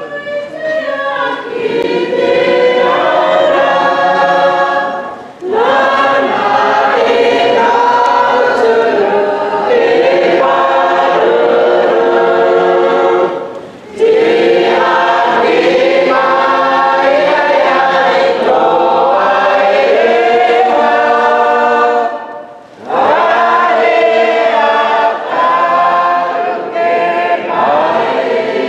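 Church choir singing a hymn in harmony, in long phrases broken by short pauses for breath.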